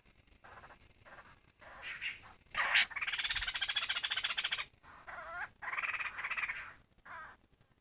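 Laughingthrush (khướu) calling: a series of short calls, then a sharp loud note followed by a rapid, harsh rattle lasting nearly two seconds, then more short calls.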